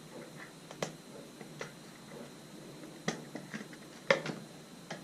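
Sharp plastic clicks and taps, about five spread out, the loudest about four seconds in: electrical wiring being fitted into Wago lever connectors.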